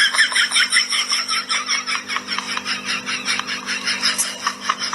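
A fast, even series of high chirps, about six a second, from a small animal, over a faint steady hum.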